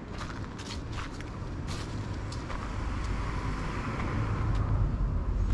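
A car driving past on the road, its engine and tyre noise swelling steadily to loudest near the end. Footstep crunches on a gravel path in the first couple of seconds.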